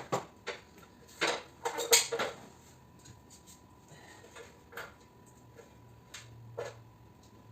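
Loose metal scrap parts clinking and clanking as they are handled: several sharp knocks in the first couple of seconds, then a few fainter ones.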